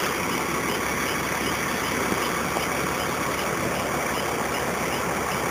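Truck engine running steadily at idle, a low, even drone.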